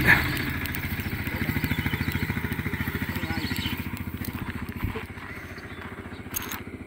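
A small engine running with a rapid, even putter that slowly grows fainter, and a single low knock about five seconds in.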